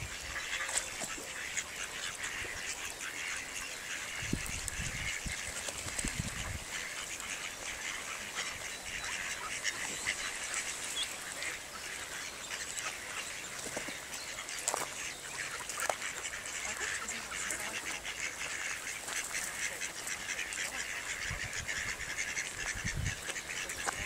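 Mallard ducks quacking off and on over a constant outdoor hiss, with a few low thuds.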